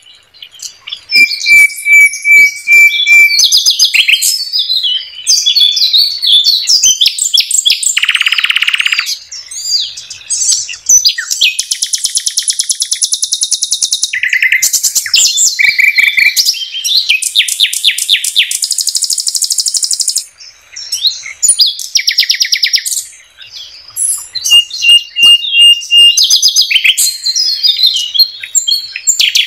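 Common nightingale singing a long run of varied phrases, with short pauses between them: fast strings of repeated notes, buzzy rattles and steady pulsed whistles.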